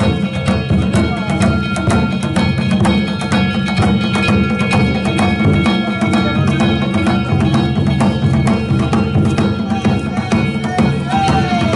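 Danjiri bayashi, the festival music played on a danjiri float: a taiko drum beaten in a rapid, steady rhythm, with metal hand gongs (kane) clanging and ringing over it without a break.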